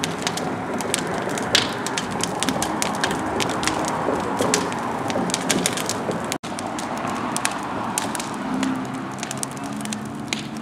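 Open rubbish fire of burning wood and debris crackling, with many sharp pops and snaps over a steady rush of flame. The sound breaks off for an instant about six seconds in.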